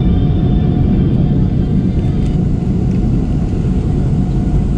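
Steady, loud low rumble of a Boeing 737 airliner's engines and airframe heard from inside the passenger cabin, with a faint steady whine above it.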